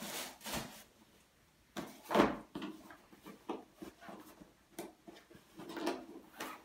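A flat cardboard box being handled and set down on the floor: a few knocks and scrapes, the loudest about two seconds in, with lighter taps and rustles of packaging after.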